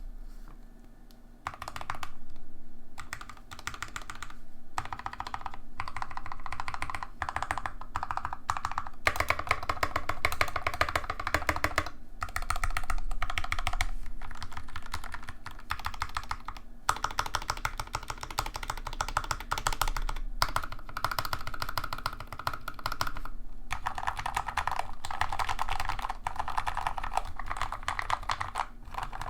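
Fast typing on a Cu65 custom mechanical keyboard with Gateron Yellow linear switches and Durock v2 stabilizers, all lubed with Krytox 205g0, case foam installed, and PBT keycaps: dense runs of muted key clacks in bursts of a few seconds with brief pauses between them.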